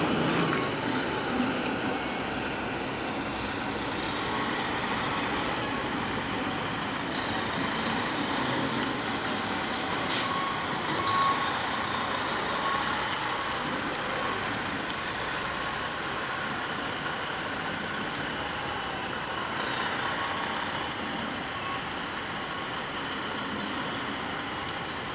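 Diesel semi tractor running as it backs a shipping-container trailer into place. Its reversing beeper sounds in a broken series of beeps near the start and again about ten to thirteen seconds in. There is one brief sharp sound about ten seconds in.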